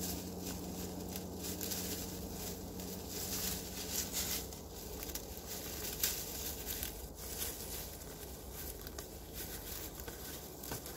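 A moose chewing and tearing at a birch broom, with leafy twigs rustling and crunching in a steady run of small crackles.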